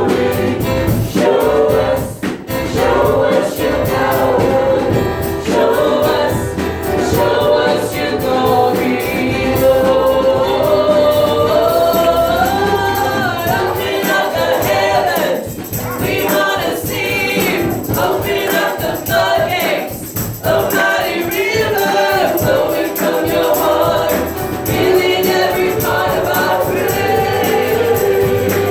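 Congregational worship song sung by a choir or group of singers over a band, with a tambourine.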